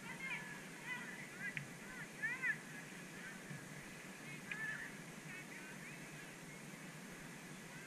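Geese honking: a run of short calls that rise and fall in pitch, thickest in the first three seconds and again about five seconds in, over a low steady background hum.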